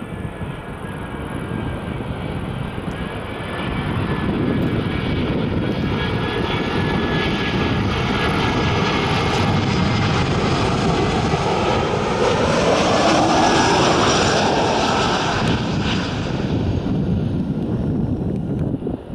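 Airbus A320 jet airliner on landing approach, its engines' whine and rumble growing louder as it comes in low. About two-thirds of the way through it passes by, and its engine tones slide down in pitch.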